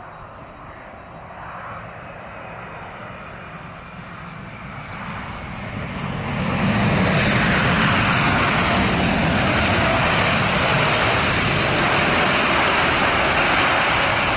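Boeing 787 twin jet engines in reverse thrust as the airliner slows down on the runway just after landing. The noise builds for about six seconds, then holds as a loud, steady rush as the plane passes close by.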